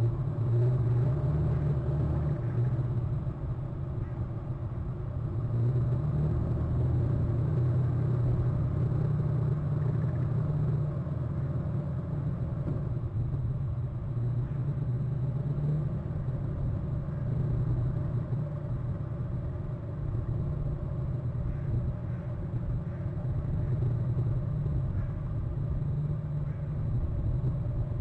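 Steady low rumble that swells and eases slowly, with no clear bird calls over it.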